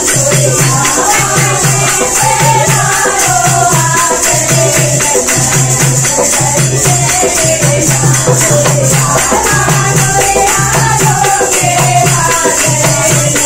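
Women singing a langurya folk song together, with hand clapping and a steady, regular beat.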